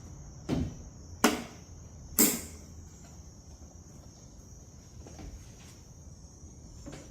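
Plastic clicks and knocks as the tail light's wiring harness connector is plugged back in: three sharp snaps in the first two or so seconds, then only a faint steady high hiss.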